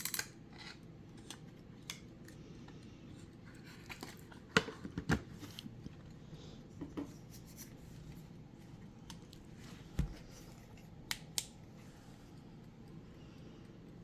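A vintage Linden wind-up travel alarm clock's bell cuts off at the very start. Scattered clicks and knocks of the small clock being handled follow, the loudest a pair about four and a half seconds in, then a low thump about ten seconds in and two quick clicks just after eleven seconds.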